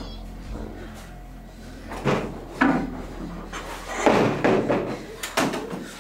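A few loud knocks and bumps of office chairs being handled and moved about, the first about two seconds in and the loudest cluster about four seconds in, over a low steady room hum.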